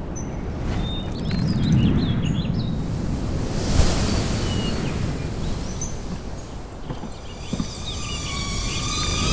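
Rushing, wind-like noise that swells and fades, with birds chirping over it, first near the start and again near the end.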